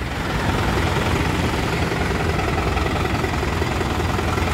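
New Holland 90 hp 4x4 tractor's four-cylinder diesel engine idling steadily.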